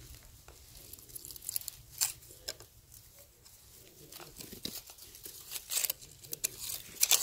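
Scattered, irregular crunching and crinkling noises, with a few sharper crackles near the end.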